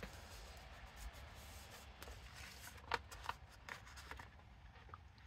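Faint rustling of paper being handled, with a few light taps about three seconds in.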